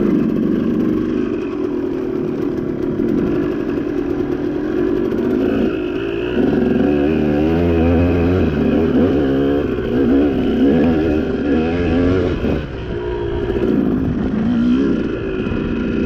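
Off-road vehicle engine working up a rocky trail, its revs rising and falling in quick throttle changes, most busily in the middle.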